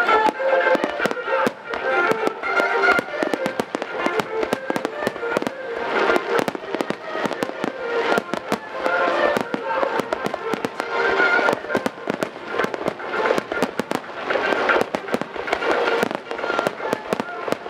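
A dense barrage of aerial firework shells bursting in quick succession, many sharp bangs and crackles every second, with music playing underneath throughout.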